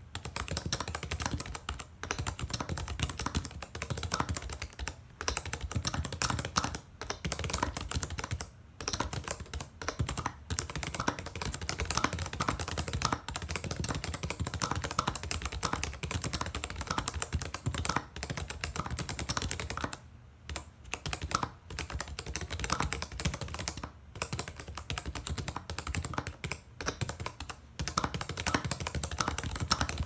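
Fast continuous typing on a stock TG3 police-car keyboard, its pre-retool Cherry MX Black switches topped with heavy, tactile silicone domes under uniform R1 keycaps. The key clicks run densely, with a few short pauses now and then.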